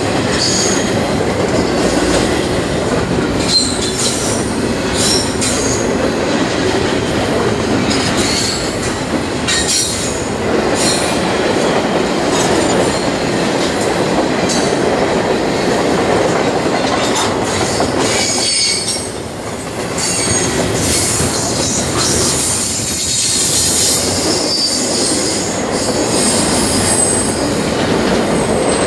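Double-stack intermodal freight train's well cars rolling past close by: a steady rumble and rattle of steel wheels on the rails, with short high-pitched wheel squeals coming and going throughout.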